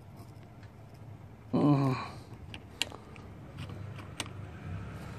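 Pliers clicking against a brake line fitting: a few sharp clicks, with a short murmured voice sound just before them.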